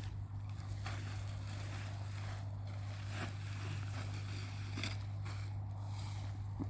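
A steady low rumble, like wind on the microphone, with a few short rustles as the packed tent and its stuff sack are handled and opened.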